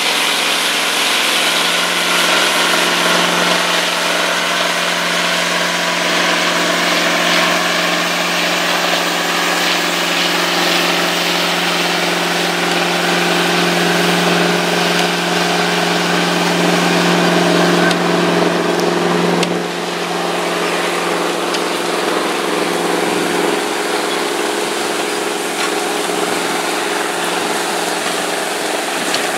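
Diesel engines of two Massey Ferguson four-wheel-drive tractors running steadily under load as they pull a 20-bottom plow through the soil. The level drops a little about 20 seconds in.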